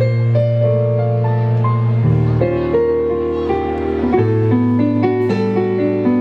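A small jazz band playing live: a digital stage piano plays chords and melody over electric bass notes held about two seconds each, with soft drums.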